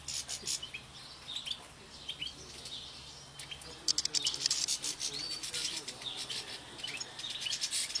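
A flock of European goldfinches twittering in short chirps, over the dry crackling and rustling of thistle heads as the birds feed on them. The crackling is thickest about four seconds in and again near the end.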